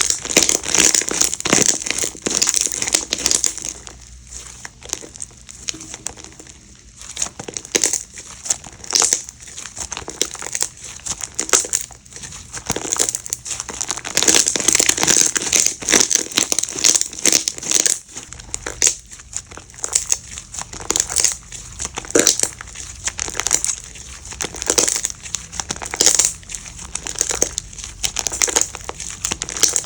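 Slime being squished and pressed by hand, giving a dense, irregular crinkling crackle of many small pops. It is busiest at the start and again midway, and sparser in between.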